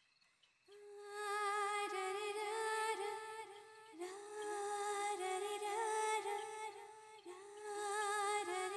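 Background film music: a wordless humming voice carrying a slow, wavering melody in three long phrases, beginning about a second in.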